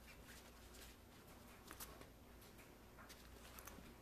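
Faint scratching and rustling of a Persian kitten's paws and claws on the fabric lining of an open suitcase, heard as scattered soft ticks over quiet room tone.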